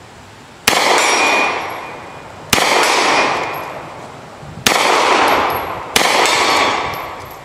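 Four single shots from a Hi-Point 995 TS 9mm pistol-caliber carbine, spaced unevenly over about five seconds. After each shot a steel target rings and the report echoes away slowly.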